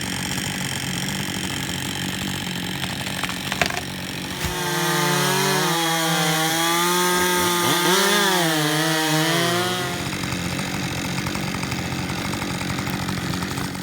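Two-stroke chainsaw running, then at full throttle from about four and a half to ten seconds in, its pitch rising and dipping as it cuts, before dropping back to a steadier run.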